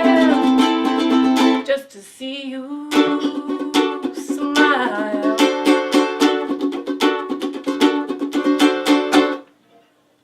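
Electric ukuleles playing the close of a song: a held sung chord ends a couple of seconds in, then a fast strummed run that stops abruptly about nine seconds in.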